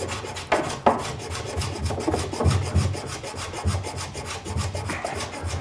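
Block plane shaving the edge of a solid-wood skirt to bring it flush with the plywood case side: a run of short, irregular scraping strokes.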